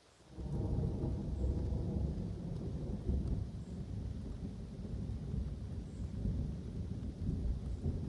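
Thunder: a loud low rumble that comes in suddenly about half a second in and rolls on without a break.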